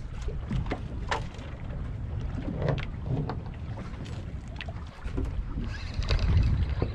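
Wind buffeting the microphone and choppy water slapping against a small boat's hull, with scattered short knocks and splashes, louder for a moment near the end.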